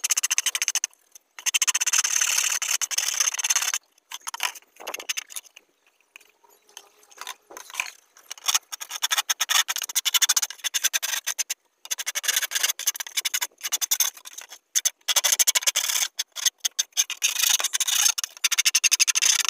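A flat wooden stick rubbed rapidly back and forth along the cut edge of a plastic dish-soap bottle to smooth it, making quick rasping strokes. The strokes come in runs of a few seconds with short pauses, and are quieter from about four to eight seconds in.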